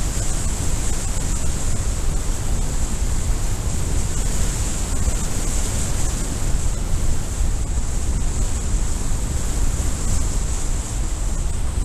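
Wind rushing over the camera microphone of a speedflyer in flight: a steady low buffeting rumble with a constant high hiss.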